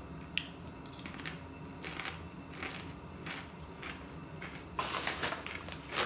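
Someone crunching and chewing crisps, giving irregular crisp cracks. There is a sharp crack just under half a second in, and a denser, louder run of crunches near the end.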